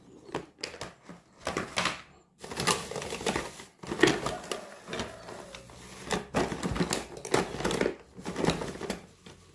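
Cardboard shipping box being scraped and cut at by hand: irregular scratching, rasping strokes on the cardboard. They come as short strokes at first and then longer, denser runs from about two and a half seconds in.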